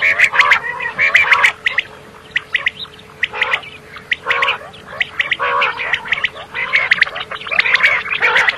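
Common quail calling: short, grainy, rasping calls repeated in quick clusters about once a second, with sharp clicky notes among them and brief pauses in between.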